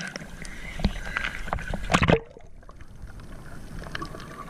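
Water splashing and sloshing with scattered clicks and knocks, loudest in the first two seconds, then cutting back to a quieter wash of water.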